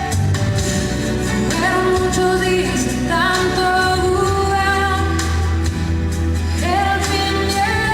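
Song with a woman singing long, gliding notes over sustained bass chords.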